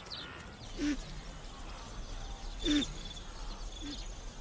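Night-time wild ambience: insects chirping in short high trills, with three short low hooting calls from an animal, the loudest nearly three seconds in.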